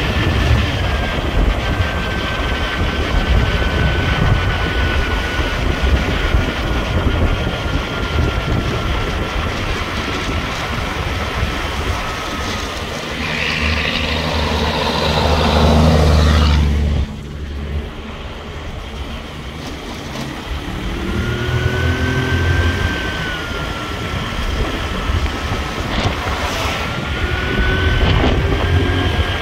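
A motor vehicle on the move: steady engine rumble and road noise, with a thin whine that slowly falls in pitch and later rises again. A louder rush of noise builds a little past halfway and cuts off suddenly.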